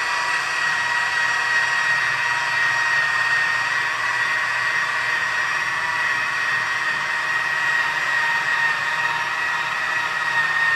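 Electric polisher running at a steady speed, a continuous whine over a hiss, as it makes a light final pass buffing rubbing compound into the painted wing.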